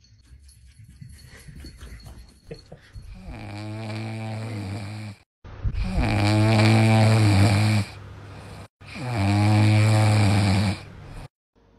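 French bulldog puppy snoring in its sleep: three long snores about two seconds each, starting about three seconds in, the second and third louder than the first.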